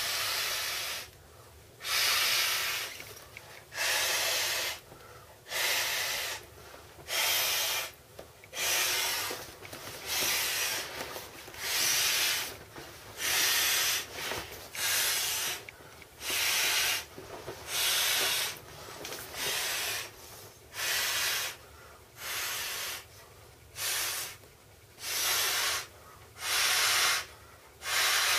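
Vinyl swim-ring tube being blown up by mouth: a steady series of long breaths puffed into the inflation valve, about one every one and a half seconds, with short quiet gaps for inhaling between.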